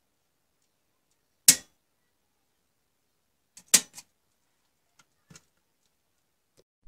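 Miniature circuit breaker switches snapping over with sharp mechanical clicks: one about a second and a half in, a tight group of three near four seconds in, then a few faint ticks.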